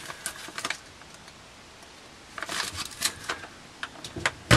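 Crinkling and crackling of a foil freeze-dried meal pouch being handled, in short bursts, with a thump near the end as it is set down.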